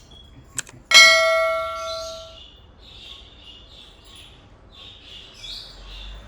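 A single metallic clang, like a metal object or bowl being struck, rings with clear tones and fades over about a second and a half. Small birds chirp repeatedly after it.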